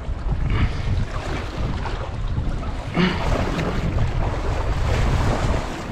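Wind buffeting the microphone, with open-sea waves washing against a small boat's hull.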